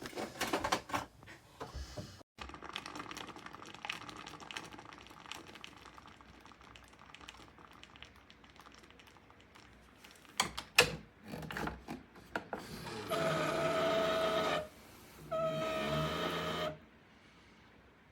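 Clicks and handling of a Keurig K-Mini single-serve coffee maker, then its small water pump buzzing in two bursts of about a second and a half each, with a short pause between them.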